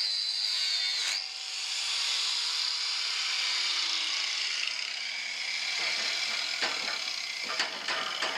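Angle grinder grinding steel with a high whine. It stops about a second in and spins down, its pitch falling slowly over several seconds. Near the end come metal clanks as the tool is set down and the part is handled.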